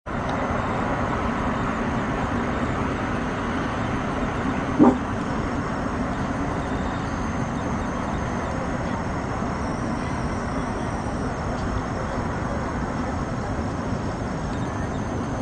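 Steady hum of city traffic, with one short pitched sound about five seconds in.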